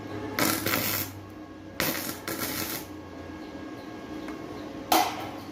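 MIG welder arc striking in short tack welds: two crackling bursts of about half a second and a second, then a brief third one near the end.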